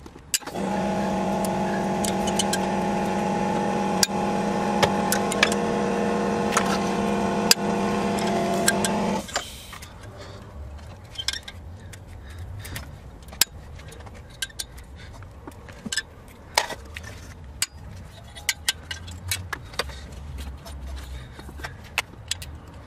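A steady, loud buzzing machine hum starts about half a second in and cuts off suddenly around nine seconds in. Light metallic clicks and ticks follow as a hex key works the bolts of a clutch pressure plate.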